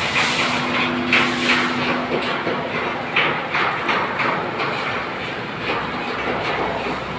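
Electric arc welding: the arc crackles steadily, dense with irregular sharp pops.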